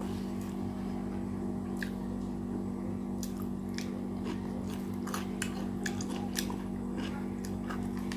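A person eating close to the microphone: chewing with wet mouth clicks and lip smacks, scattered irregularly over a steady low hum.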